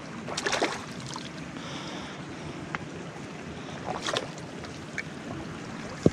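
Shallow spring water trickling over stones, with a hand splashing in it and lifting a stone out, about half a second in and again around four seconds.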